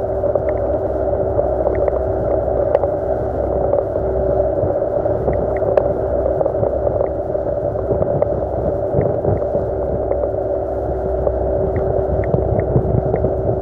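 Yamaha 40 hp two-stroke outboard motor running at a steady cruising speed with the boat under way, an unchanging drone.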